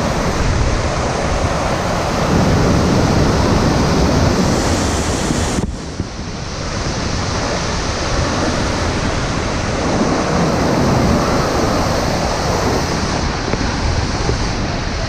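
Waterfall pouring, a loud steady rush of falling water with wind buffeting the microphone; the rush dips briefly about six seconds in.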